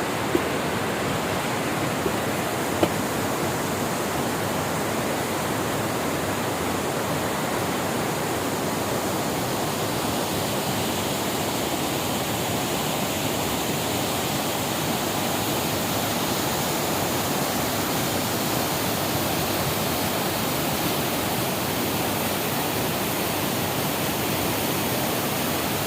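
Mailung waterfall: a large waterfall pouring, its water falling and crashing in a steady, even rush.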